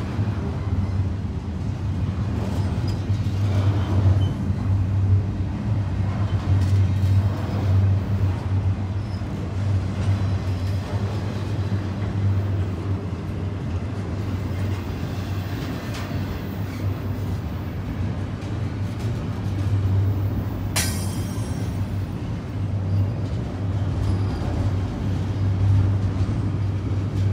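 Norfolk Southern double-stack intermodal freight train rolling past, a steady rumble of railcar wheels on the rails, with one brief sharp high-pitched ring about three-quarters of the way through.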